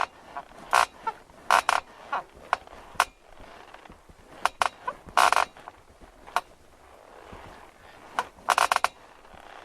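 Bed frame creaking and clicking in irregular short bursts, the loudest about five seconds in and near the end.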